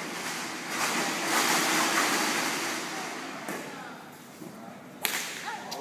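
A loud rushing hiss swells and fades over about two seconds. Near the end comes a single sharp smack of a badminton racket striking the shuttlecock.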